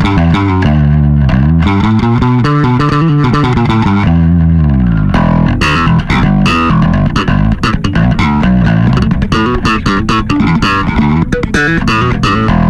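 Six-string Tune TWB6 electric bass played through a compressor, a Boss BB-1X and a Darkglass B3K: a light overdrive with a chewy, thick tone and tamed attack. Fingerstyle notes and chords come first, then about five seconds in it turns to slap and pop playing with sharp, rapid attacks.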